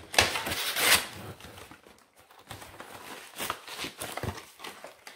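Packaging being handled: a loud rustle or scrape of box and paper in the first second, then quieter small knocks and rustles.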